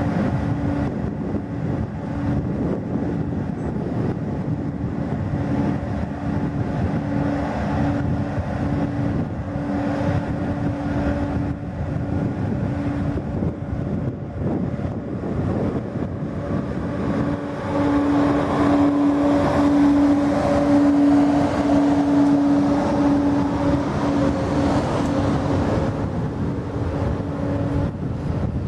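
TGV Atlantique high-speed trainset rolling past along a station platform: a steady rumble of wheels on rails with an electric hum that keeps breaking off and returning, strongest in the second half.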